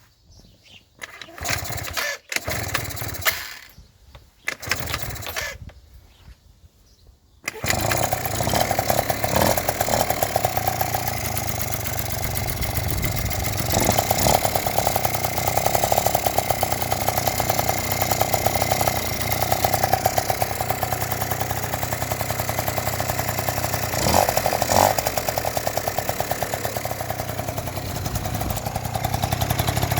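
Yamaha Jog scooter engine: a few short cranking attempts, then it catches about seven seconds in and keeps running with a fast even beat, revved up briefly a few times. It now starts after the spark plug was cleaned and the cylinder head tightened.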